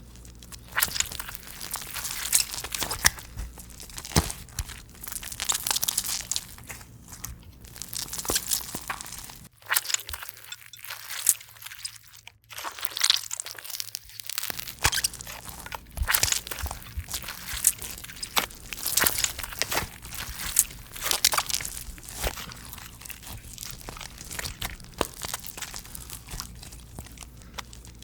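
Slime being squeezed, folded and stretched by hand, giving a dense, irregular run of crackles and soft pops. The crackling is unbroken, though the low background drops away for a few seconds midway.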